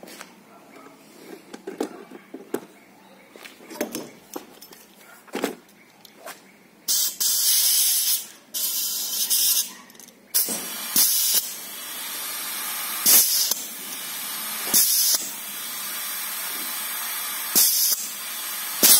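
Compressed air hissing as it is fed through a hose and spark-plug-hole adapter into an engine cylinder for a head gasket leak test, after a few light clicks of handling the fitting. The hiss comes in several loud bursts over a steady hiss from about halfway in; the test on this cylinder shows no blown head gasket.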